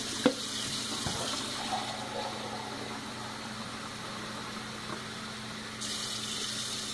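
Kitchen faucet running steadily, its stream filling a glass measuring cup held under it and splashing back onto the sink as the cup comes away near the end. A single sharp knock just after the start.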